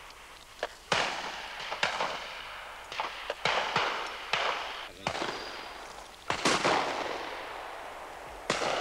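A rapid series of shotgun shots, about ten in all, each loud bang trailing off in an echo through the woods; two shots come close together a little after six seconds in.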